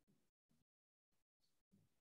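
Near silence: a pause in the lecture, with only faint gated room noise.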